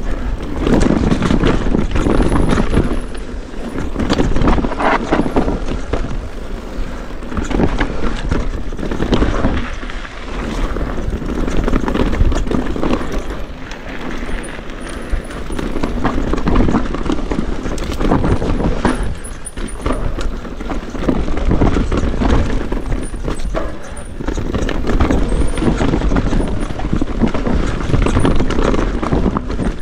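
Mountain bike ridden fast downhill on a dirt forest trail: tyres rolling over dirt, roots and rocks, with steady rattling and knocking from the bike, the noise rising and falling as the speed and ground change.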